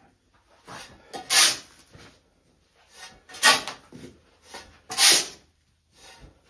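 A shovel scraping into a pile of used green foundry sand and tossing it back, a short scraping rush each time, with three main scoops about a second and a half apart. The sand is being turned to break up clumps and mix it uniform before mulling.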